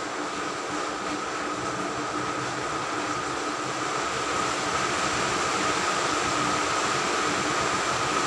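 A steady mechanical hum with an even hiss, growing a little louder about four seconds in.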